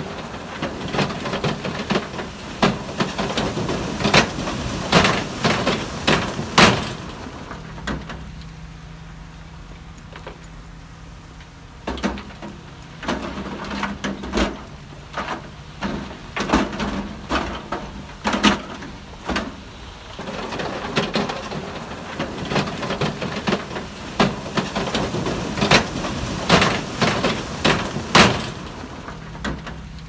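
Heavy earthmoving machinery at work: dense runs of metallic clanks and knocks over a steady low engine drone. The clanking dies down for a few seconds about a third of the way in, leaving the engine, then starts again.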